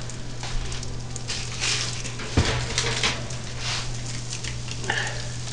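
Cubed butternut squash, just pulled hot from a 400°F oven on a parchment-lined baking sheet, crackling and sizzling, with one knock of the pan about two and a half seconds in, over a steady low hum.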